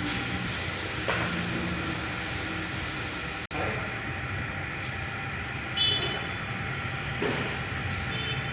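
Yamaha MX King 150's single-cylinder engine running steadily, with the mechanical noise that the owner calls noisy (berisik), described as a common complaint on this model. The sound cuts out briefly about three and a half seconds in, and there is a short click near six seconds.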